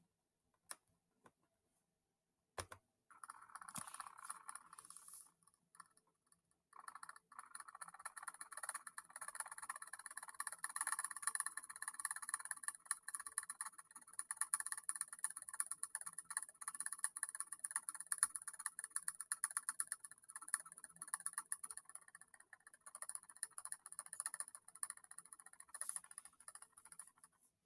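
Computer keyboard typing in a fast, continuous clatter, with a short pause about five seconds in and a few lone clicks before it starts.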